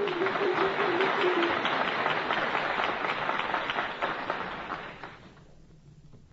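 Audience applauding, thinning and fading away about five seconds in. For the first second and a half, a rapidly repeated piano figure sounds beneath it.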